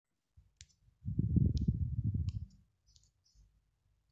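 Slotted spatula working a thick potato and fish-roe cutlet mixture in a nonstick frying pan: about a second and a half of dull scraping and thudding, with scattered faint high clicks.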